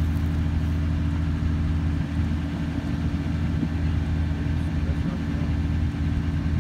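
A vehicle engine idling steadily, a low, even hum.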